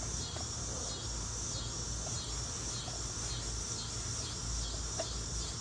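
Steady outdoor chorus of chirping insects, crickets by their sound, with a few faint small clicks from a hand screwdriver turning a screw into a wooden cabinet door.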